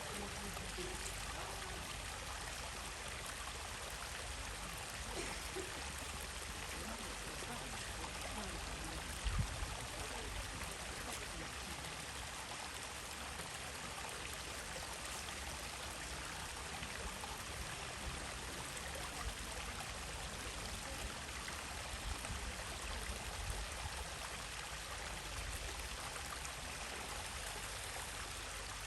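Stream water running steadily over rocks, a continuous rushing and trickling. A brief low thump about a third of the way in.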